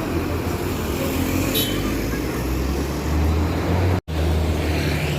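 Tour bus engine running with road and traffic noise, a low steady rumble that swells about three seconds in. The sound cuts out for an instant about four seconds in.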